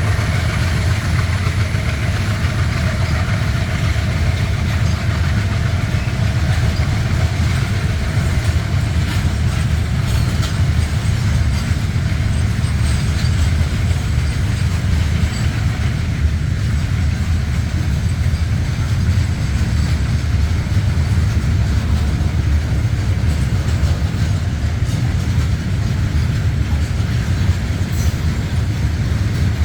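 Goods train rolling past at close range: a loud, steady low rumble of wagons running on the rails, with no let-up for the whole stretch.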